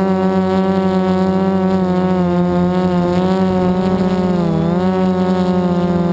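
Small multirotor drone's brushless motors spinning APC 4.7x10 propellers in flight: a steady buzzing whine whose pitch wavers slightly and dips briefly about four and a half seconds in.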